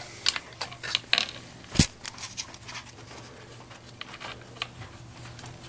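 Small metallic clicks and scrapes of hands working a small metal oil-line fitting loose from a chainsaw engine, the sharpest click a little under two seconds in.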